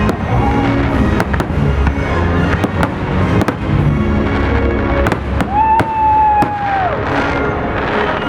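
Fireworks display: a string of sharp bangs and crackling bursts over accompanying music, with a held whistling tone for about a second and a half around the middle.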